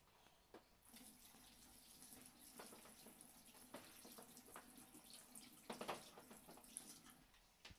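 Faint water from a tap running into a stainless-steel sink while hands are rinsed under it. The flow starts about a second in and stops near the end, with a few louder splashes about six seconds in.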